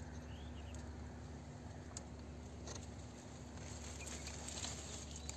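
Faint outdoor background: a steady low hiss and hum with a few light ticks, about two and three seconds in.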